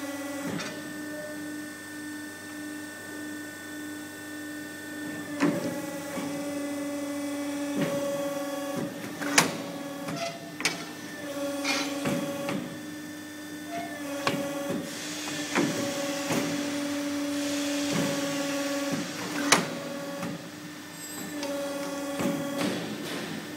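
CNC tube-bending machine working through a bend cycle on a steel tube: a steady hum from its drive, with sharp knocks and clanks as the clamps and bend die move. A hissing rush comes in about two-thirds of the way through.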